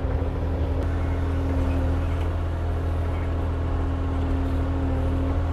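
Kubota four-ton compact excavator's diesel engine running steadily as the machine swings its arm and grabs a log with its hydraulic thumb.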